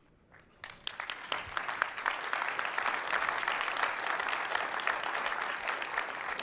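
Audience applauding: many hands clapping start about half a second in, quickly build to a steady patter, and thin out near the end.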